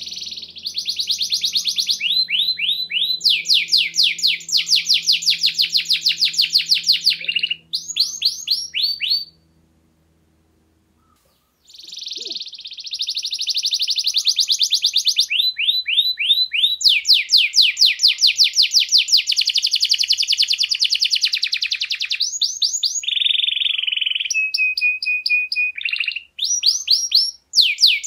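A domestic canary singing in full song: long rolling trills of rapid repeated high notes in two long phrases, broken by a pause of about two seconds a third of the way through. Near the end there is a short held whistle.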